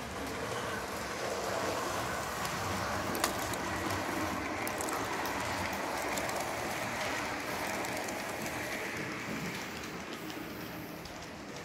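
Model electric locomotive and double-deck passenger coaches running on layout track: a steady whirring rattle of motor and wheels on the rails that swells as the coaches pass close and eases off near the end, with a single sharp click about three seconds in.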